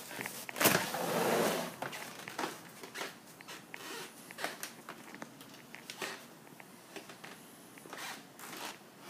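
A sliding glass door opening: a sharp click about a second in, then a noisy rush of about a second as the door runs along its track. After that come scattered light clicks and taps.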